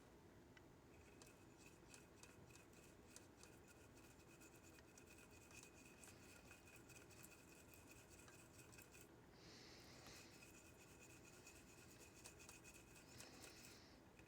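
Very faint scratching and small clicks of a tool working on a circuit board, cleaning up around a newly fitted capacitor leg. A faint steady high whine runs under it, and there are two brief soft hisses, one in the second half and one near the end.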